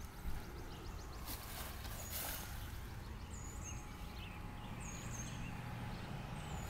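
Outdoor background: a small bird repeating a short, high two-note chirp every second or two over a low steady rumble, with a few soft knocks and rustles.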